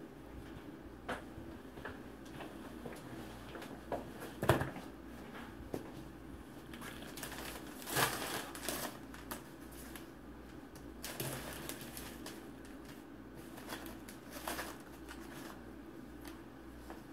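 Faint, scattered handling noise: paper or packaging rustling and crinkling with light knocks. There is a sharp knock about four and a half seconds in and a longer rustle about eight seconds in, as wound-dressing supplies are handled.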